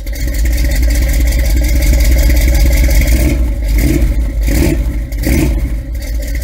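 A car engine running loud with a steady low rumble, its sound shifting and briefly dipping a few times in the second half.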